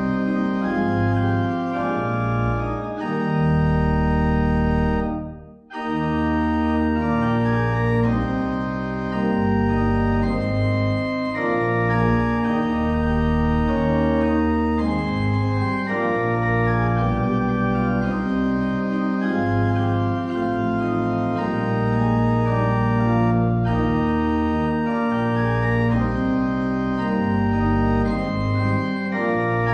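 Organ prelude: sustained chords that change every second or so, with one short break in the sound about five and a half seconds in.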